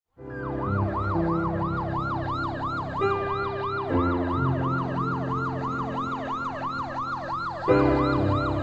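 Emergency vehicle siren in a fast yelp, its pitch sweeping down and up about three times a second, over low steady tones that shift a few times.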